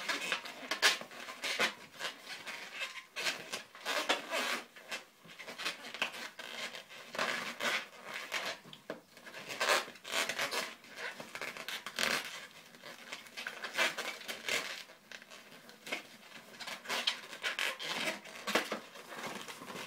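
Two inflated 260 latex modelling balloons being handled and tied together at their knotted ends: irregular short noises of latex rubbing under the fingers, with no steady tone.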